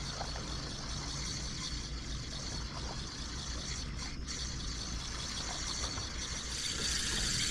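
Steady outdoor noise of wind and small waves lapping at the water's edge, with a low steady hum underneath. The rushing hiss grows a little near the end.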